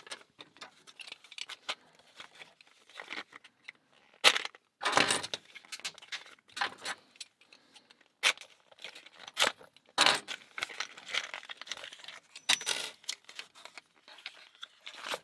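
A new Abus 45/15 padlock being unpacked by hand: packaging rustling and tearing, with irregular clicks and the jingle of its keys. The loudest knocks and rustles come about 4, 5 and 10 seconds in.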